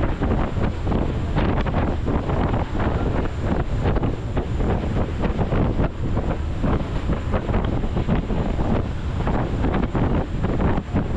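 Strong wind buffeting the camera microphone, a dense, low-heavy rush that rises and falls in quick gusts.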